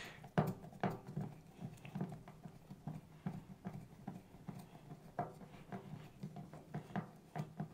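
Phillips screwdriver driving a screw into the plastic of a diaper pail: faint, irregular clicks and ticks as the screw is turned in.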